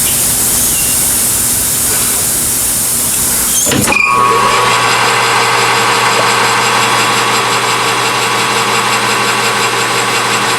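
A steady hiss for about the first four seconds, then a sudden change to a metal lathe running steadily, its motor giving a strong low hum with several steady higher tones, as an aluminum bushing is turned down to size.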